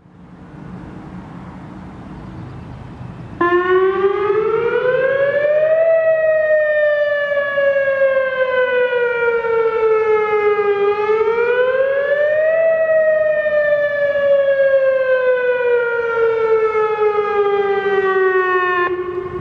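Whelen WPS-2903 electronic outdoor warning siren sounding its wail tone in a test. It starts suddenly about three seconds in, rises quickly in pitch, falls slowly, rises again and falls slowly once more, and cuts off near the end.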